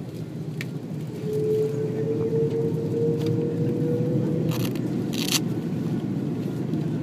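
Airbus A330 cabin noise while the airliner taxis: a steady low engine and rolling rumble that grows louder a little over a second in, with a steady hum joining it for about three seconds. Two brief sharp noises come about halfway through.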